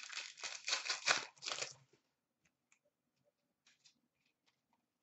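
Wrapper of a 2016-17 Upper Deck Series 1 hockey card pack being torn open by hand: a quick run of ripping and crinkling for about two seconds, then a few faint ticks as the cards are handled.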